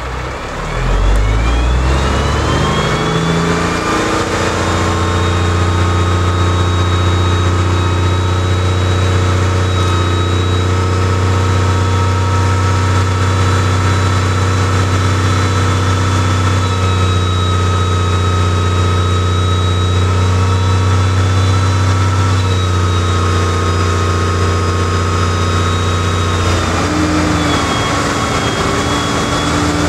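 Semi-truck diesel engine revving up in the first few seconds and then held at a steady raised speed while it drives the hydraulic hoist that tips the end-dump trailer's bed up. The engine speed drops back near the end.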